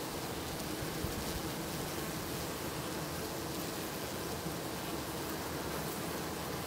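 Steady hiss with a faint low hum underneath, the background drone of honeybees around the hive.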